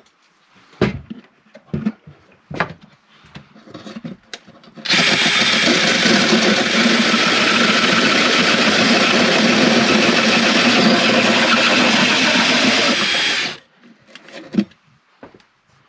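DeWalt cordless drill driving a hole saw through a pine plank wall. It cuts steadily for about eight and a half seconds, then stops suddenly. A few scattered knocks and taps come before it, and one sharp knock comes after.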